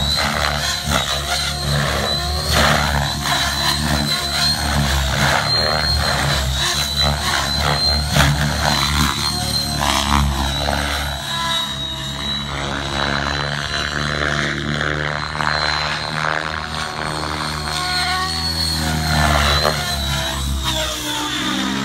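Align T-REX 700E electric RC helicopter flying aerobatics: its rotor blades and motor run continuously, the pitch rising and falling as it swoops and turns.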